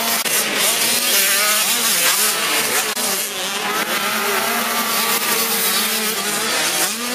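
Several 85 cc two-stroke motocross bikes racing past at high revs, their engine pitch rising and falling continuously as the riders work the throttle over the jumps.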